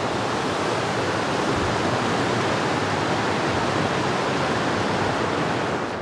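A fast river rushing with whitewater, heard as a steady, even rush. The river is running high and muddy, blown out and unfishable.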